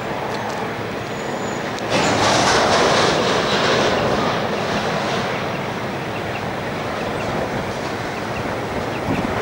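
Grain train's hopper wagons rolling slowly past on the grade: a steady rumble of wheels on rail with faint clicking. A louder rushing swell comes in about two seconds in and fades over the next few seconds.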